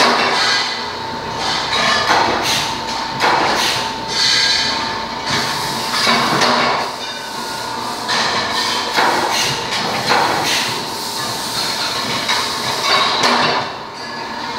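Pipe-bending machine working: a steady machine whine with repeated sharp metal clanks about every one to two seconds.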